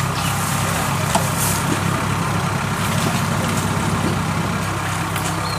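Diesel engines of rice combine harvesters running steadily as one tows the other, which is bogged in sticky mud.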